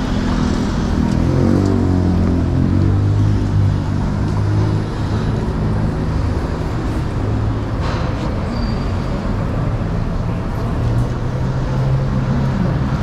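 City road traffic passing close by: motor vehicle engines running, with a low engine note that rises in pitch about a second in and then holds steady over the tyre and traffic noise.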